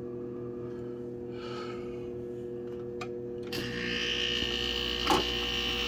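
An old General Electric Carry Cool window air conditioner hums steadily on inverter power while its fan does not turn, the sign of a fan stuck from sitting unused. About three and a half seconds in there is a click and a louder running noise with a high whine sets in, and a knock follows near the end.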